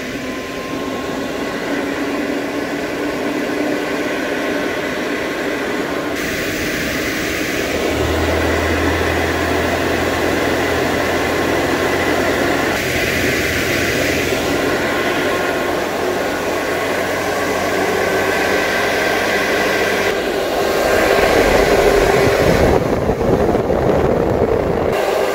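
AC Infinity Cloudline T6 six-inch inline duct fan running at its upper speed settings: a steady rush of air with a faint whine. It gets louder in steps about 8 and 20 seconds in as the speed is turned up toward the top setting.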